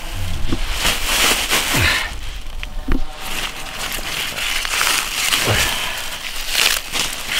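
Bok choy leaves rustling and crisp stems snapping as the greens are picked by hand, a crackly rustle broken by a few low bumps.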